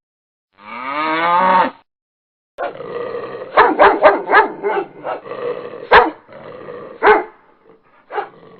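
Animal sound effects: a short low call falling in pitch, like a moo, then a dog barking repeatedly with growling in between, about five sharp barks loudest.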